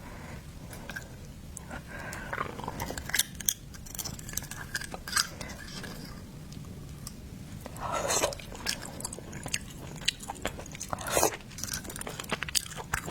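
Close-miked mouth sounds of someone eating oysters: wet chewing and smacking with many sharp clicks, and a few longer, louder sucking sounds about two, eight and eleven seconds in.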